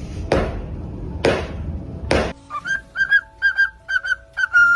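Several sharp knocks, about one a second, then a run of short, clear whistled notes, about three a second, over the second half.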